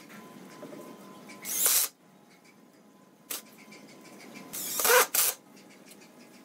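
Makita cordless impact driver driving screws through a metal corner bracket into pallet wood, in short bursts: one about a second and a half in, then two close together around five seconds, the motor speeding up with a rising whine in the longer one. A single click falls between them.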